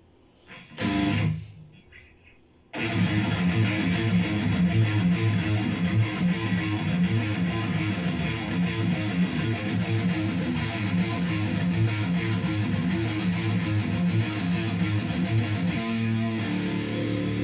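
Distorted electric guitar playing death metal riffs. A single chord is struck about a second in and rings out briefly, then after a short pause comes fast, dense riffing on low notes that cuts off suddenly near the end.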